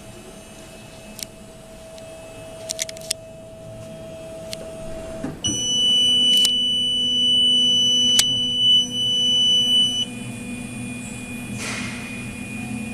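A 490 mm automatic guillotine paper cutter humming after being powered on. About five seconds in, a deeper motor hum starts, and a high, steady electronic buzzer tone sounds along with it for about four and a half seconds, with a few clicks.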